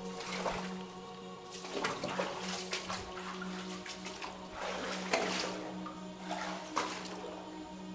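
Shallow creek water splashing and sloshing in irregular bursts, as from someone wading through it.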